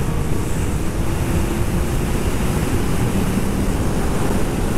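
Heavy wind rush on a rider-mounted microphone at roughly 180–200 km/h on a third-generation Suzuki Hayabusa under hard acceleration. The inline-four engine's note is faint and steady beneath the wind.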